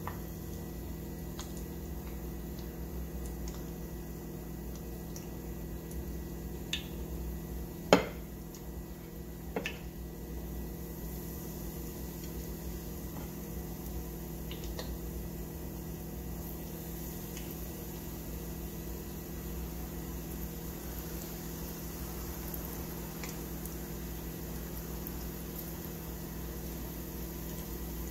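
Frying oil in a small saucepan bubbling and sizzling around chopsticks dipped in to test its heat, the bubbles showing that the oil is nearly hot enough to fry. A steady low hum runs underneath, with scattered small ticks and one sharp tap about eight seconds in and a smaller double tap just after.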